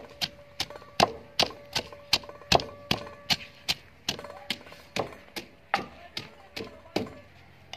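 Wooden pestle pounding fresh coriander in a wooden mortar: a steady run of thuds, about two and a half strokes a second, stopping about seven seconds in.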